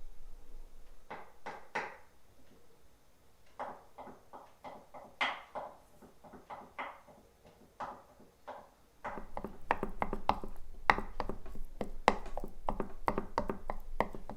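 Irregular knocks and taps of kitchen work. They are sparse at first, then come thick and fast from about nine seconds in over a low steady hum.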